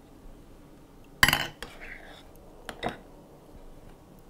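A utensil knocking and scraping against a ceramic mixing bowl while cream filling is scooped out. One sharp clack comes about a second in, the loudest sound, followed by a few lighter clinks.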